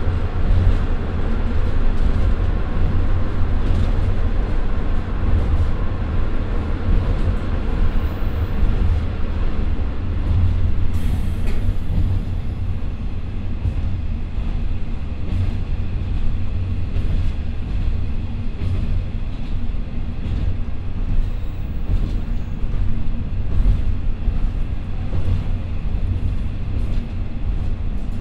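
In-cabin running noise of a JR Shikoku KiHa 54 diesel railcar at about 55 km/h: the steady drone of its twin Niigata DMF13HS diesel engines over a heavy rumble of wheels on rail, with frequent clicks and clatter from the track.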